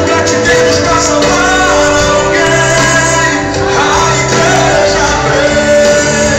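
Brazilian gospel song playing loudly and steadily, with singing over a full band.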